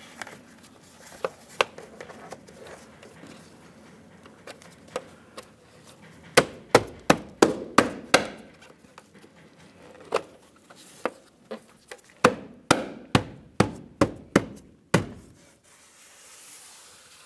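Lincoln Navigator's plastic door-sill trim panel being struck by a gloved hand to snap its tabs into place: sharp knocks, a quick run of about six a third of the way in and another run of about six near the end, with a few single knocks before.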